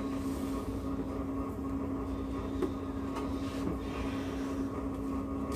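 Steady mechanical hum with one constant low tone, with a couple of faint crackles as the dry skin of a red onion is peeled by hand.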